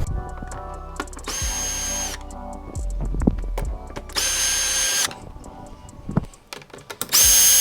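Power drill running in three short bursts, each under a second, with a steady whine, and scattered clicks between the runs.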